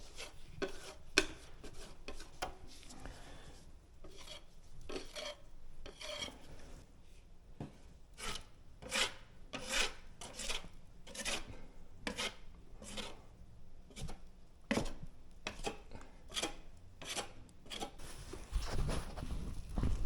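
An irregular series of scraping, rasping strokes on a hard surface, roughly one to two a second, with some heavier low knocks near the end.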